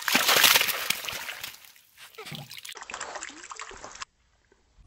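Water splashing and running off a collapsible mesh fish trap as it is hauled out of a river with fish inside. The splashing is loudest at first, then goes on more unevenly and cuts off suddenly near the end.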